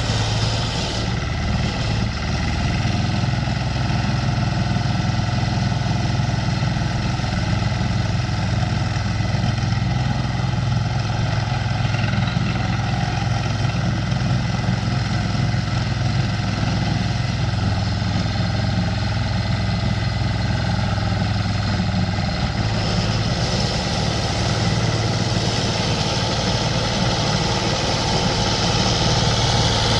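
Small diesel engine of a roller-type power lawn mower running steadily; its note shifts a little about three-quarters of the way through.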